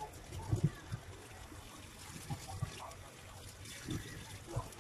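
Kitchen tap running in a thin stream into a stainless-steel sink while vegetables are rinsed by hand, with a few soft knocks from handling them.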